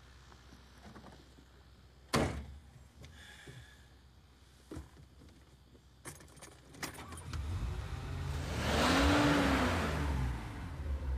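Car door slamming shut, a few small clicks of keys at the ignition, then the Mercedes-Benz W113 'Pagoda' SL's straight-six engine cranks and starts about seven seconds in, revs up and back down, and settles to a steady idle.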